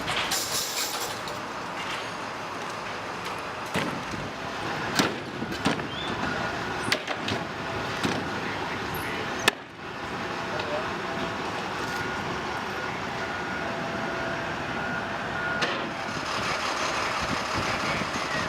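A vehicle engine running steadily, with several sharp knocks and clanks through the first half and a brief drop-out about halfway through.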